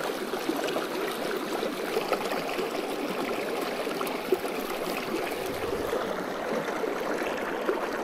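Shallow rocky creek water running and trickling steadily.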